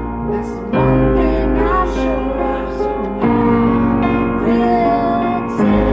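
Upright piano played in slow sustained chords with a deep bass, a new chord struck about every two and a half seconds, and a woman's voice singing a melody over it.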